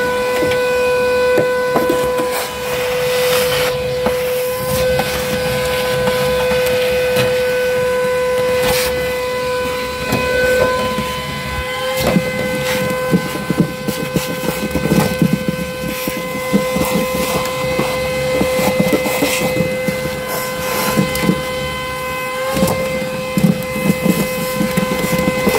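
Cordless vacuum with a ribbed hose running with a steady high whine. A brush scrubs and knocks against sheet metal with scattered rasps and taps. The whine dips and recovers briefly about twelve seconds in and again near the end.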